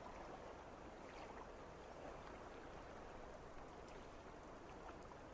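Faint, steady outdoor background noise, an even hiss like flowing river water, with a few faint ticks.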